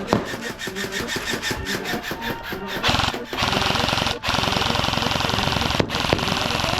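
Airsoft rifles firing full-auto: a rapid rattle of shots at about ten a second, then from about three seconds in a denser, steadier stream broken by two brief pauses.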